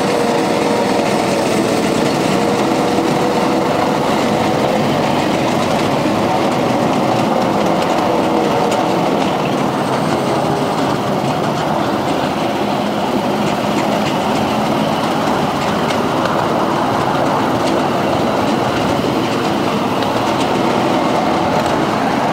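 A ride-on miniature railway train running along its track: the steady rumble and clatter of the small wheels on the rails. A faint whine fades out over the first few seconds.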